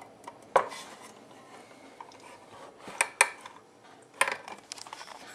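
Metal table knife clicking and scraping against the rim of a tin can, levering up the lid because the can's pull-ring broke off. There are several sharp clicks, the loudest twice around three seconds in.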